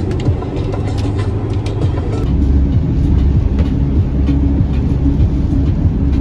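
Van driving along: a steady low rumble of engine and road noise inside the cab, with scattered short clicks and rattles.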